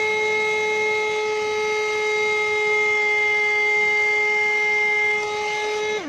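Handheld vacuum cleaner running with a steady high-pitched motor whine and a hiss of air as it sucks up loose granules. Right at the end it is switched off and the whine slides down in pitch as the motor winds down.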